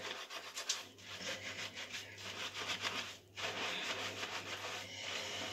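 Hands scrubbing shampoo lather through wet hair: a rough rubbing of many quick strokes, with a short pause about three seconds in.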